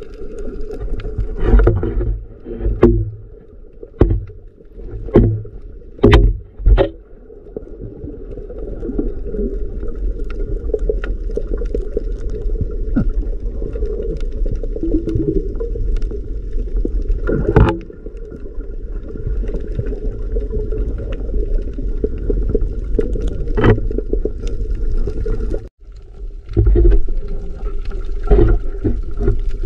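Muffled underwater sound picked up by a submerged camera: a steady low rumble of water, with sharp knocks and clicks, several in the first seven seconds and a few more later on.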